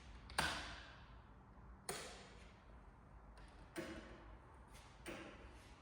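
Four sharp knocks about one and a half seconds apart, each echoing away.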